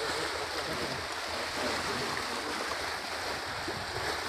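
Steady rushing outdoor noise by a river, with faint murmuring voices beneath it.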